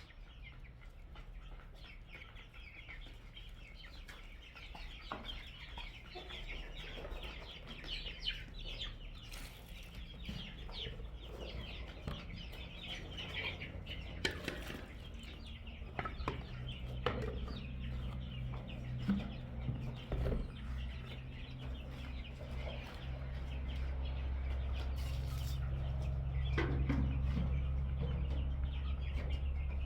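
Chickens clucking and calling. A low steady hum comes in about halfway through and grows louder toward the end.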